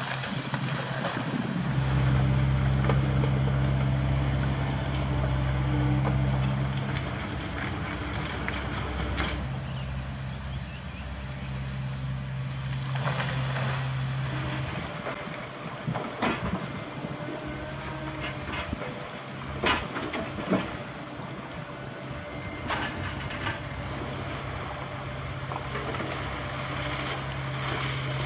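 CAT 307E2 mini excavator's diesel engine running at a steady pitch, louder in stretches as the hydraulics take load while digging. Rocks knock and clatter several times in the second half as the bucket scoops and dumps stone.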